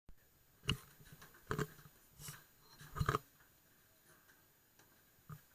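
Faint footsteps, four steps about 0.8 s apart, then one more near the end.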